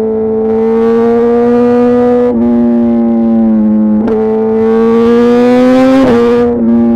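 2018 Suzuki GSX-R 1000 R's inline-four engine through a full titanium SC-Project exhaust with CRT silencer, pulling under acceleration. Its steady high note climbs slowly in pitch and is broken by three quick gear changes, about two seconds apart.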